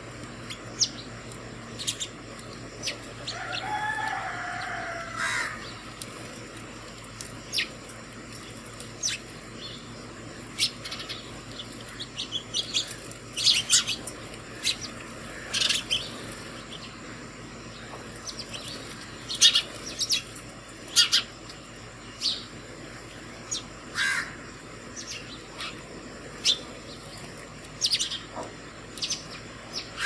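House sparrows chirping at a seed feeder: short, sharp chirps throughout, now single, now bunched into quick runs. About four seconds in there is a longer, lower call that falls in pitch.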